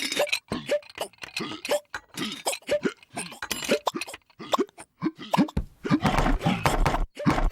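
Cartoon hiccup sound effects from hiccuping household objects: a rapid string of short 'hic' sounds, about two or three a second, with some clinks. Near the end a louder, noisier jumble joins them.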